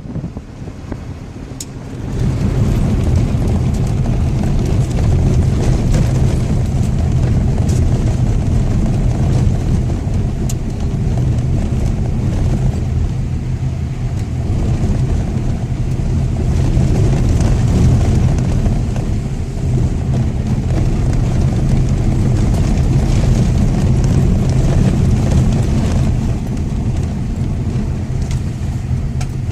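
Car driving along a forest road: a steady low rumble of engine and tyre noise that swells about two seconds in and holds.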